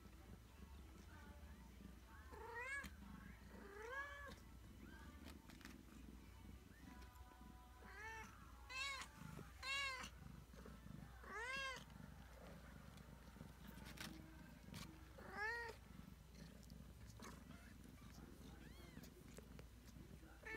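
Three-week-old Ragdoll kittens mewing: about seven short, high mews that rise and fall in pitch, several coming in quick succession in the middle.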